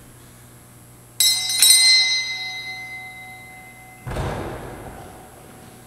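A small bell struck twice in quick succession about a second in, its bright, high ring fading slowly in a large echoing church; about four seconds in, a dull thump.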